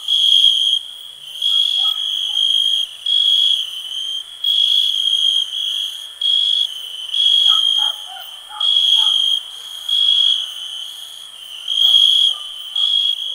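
Crickets chirping: a high, steady trill that starts and stops about once a second, with fainter, lower chirps from other animals now and then.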